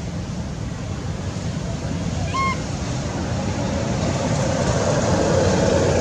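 Steady low outdoor rumble, swelling into a broader hiss over the last couple of seconds, with one short high squeak about two and a half seconds in.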